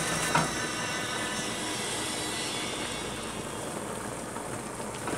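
Wet escarole steadily sizzling and steaming in a hot pot of oil, garlic, pepperoni and cannellini beans. The sizzle eases slowly, and there are a couple of light knocks at the start.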